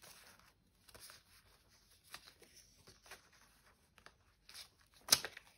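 Polymer banknotes being counted by hand: a few soft flicks and rustles of the plastic notes, with one sharper crackle about five seconds in.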